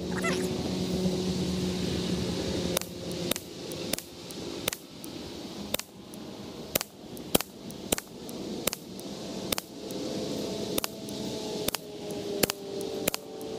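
Semi-automatic .22 LR Ruger 10/22 rifle firing SK Standard Plus rounds in a steady string, a shot roughly every half second to a second, about fifteen shots in all.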